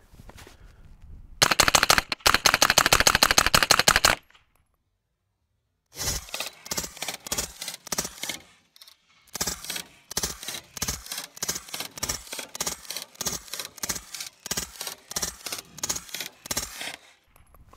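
Integrally suppressed 9mm semi-automatic carbine (Spikes Tactical Brown Recluse) fired in a fast string, emptying the magazine, then a pause. Then another long run of evenly spaced suppressed shots, about three a second.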